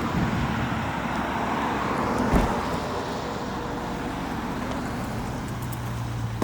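Car engines running nearby, with one sharp knock about two and a half seconds in. A steady low engine hum sets in about five seconds in.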